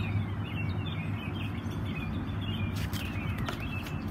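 Small birds chirping repeatedly over a steady low hum of outdoor background noise.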